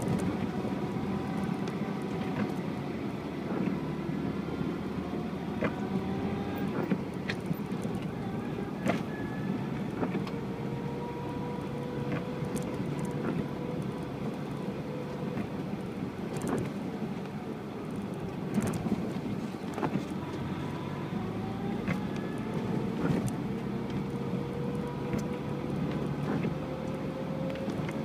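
UAZ Patriot engine running under load on a muddy track, its revs slowly rising and falling, with scattered knocks and clatters.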